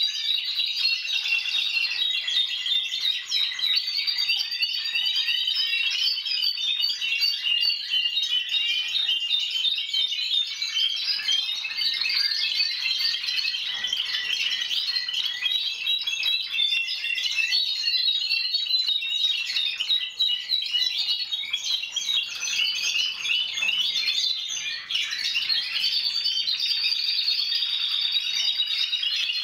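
Timbrado Español canaries singing together in caged training, a steady unbroken stream of rapid, overlapping trills and chirps.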